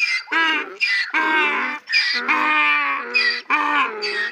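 Donkey braying: a repeated hee-haw, high strained notes alternating with lower ones.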